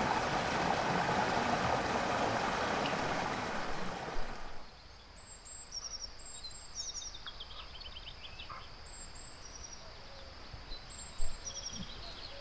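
Rushing river water for about the first four and a half seconds, cut off suddenly. Then quieter woodland: small birds chirping in short repeated high calls over a steady high insect drone, with one sharp knock about eleven seconds in.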